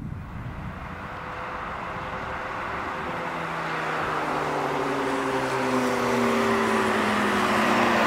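Volvo FH semi-truck approaching on the road: diesel engine hum and tyre noise growing steadily louder, the engine note sliding a little lower in pitch in the second half.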